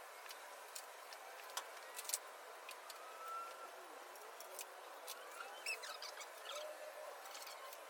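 Scattered light clicks and clinks of hand tools working on hoses and clamps in a car's engine bay, with a few faint bird chirps in the background.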